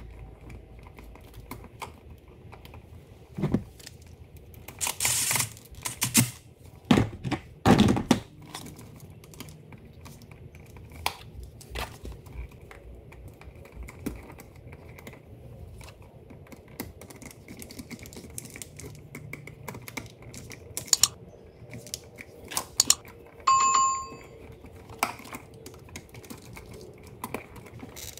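Handling noise of a NEMA 14-50 receptacle and its stiff wires being pushed and worked into a plastic electrical box: scattered clicks, knocks and rustles. A louder scrape comes about five seconds in and heavier knocks around seven to eight seconds. A brief high squeak follows near the end.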